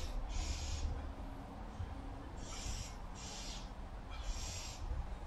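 Heavy breathing of a man mid-workout: about five short, hissing exhales spread through a set of squats, over a low rumble.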